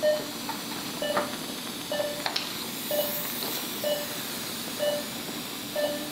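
Patient monitor's pulse tone beeping steadily about once a second, a short mid-pitched beep with each heartbeat, over a steady hiss and faint hum. One sharp click comes a little past two seconds in.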